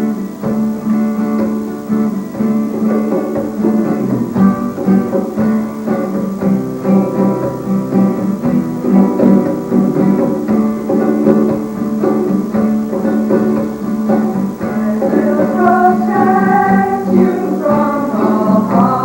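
Guitar picking the instrumental introduction to a song, with a repeating low note under the melody; a singing voice seems to come in near the end.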